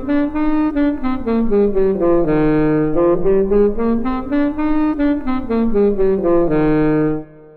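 Instrumental music: two melodic lines moving up and down in steps in harmony, ending on a held chord that breaks off about seven seconds in.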